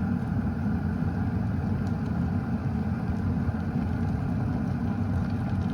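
Philips electric glass kettle boiling: a steady low rumble of bubbling water.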